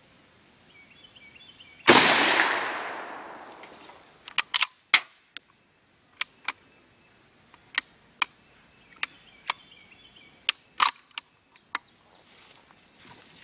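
A single shot from a .303 bolt-action rifle about two seconds in, loud with an echoing tail that dies away over about two seconds. It is followed by a series of about a dozen short, sharp metallic clicks over the next eight seconds as the rifle's bolt and action are worked.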